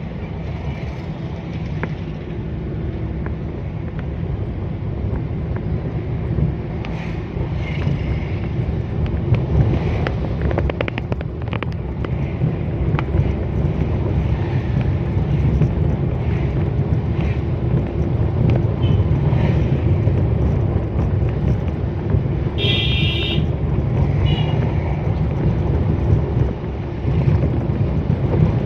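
Steady engine rumble and road noise of a van driving slowly through town, heard from inside the cabin. A short horn beep sounds about three quarters of the way through, followed by a shorter one.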